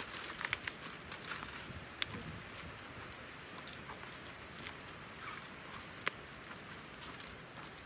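Wood fire crackling under a pan, a steady faint hiss with scattered small pops. Aluminium foil crinkles as it is pressed over the pan, in the first second and again with a sharp click about six seconds in.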